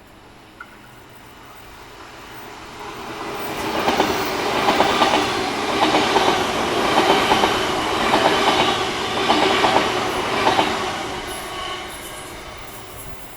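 A train passing by, its wheels clacking in quick groups over the rail joints about once a second as it swells up and then fades away.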